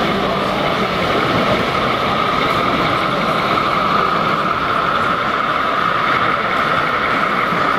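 H0 scale model diesel locomotive hauling passenger coaches along the layout's track, giving a steady whine over the constant din of an exhibition hall.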